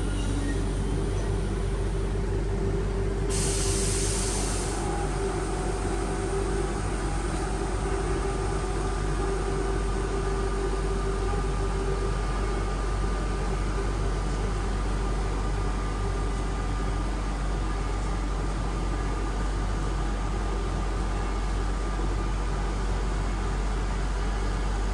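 Double-deck SNCF passenger train pulling out of the station, its coaches rolling past until the rear driving car goes by about halfway through, with a steady low hum throughout. A brief hiss of air comes a few seconds in.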